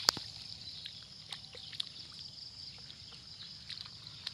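Water dripping and trickling from a mesh trap net as it is lifted out of shallow water, with a sharp tap just after the start and a few faint ticks over a steady high hiss.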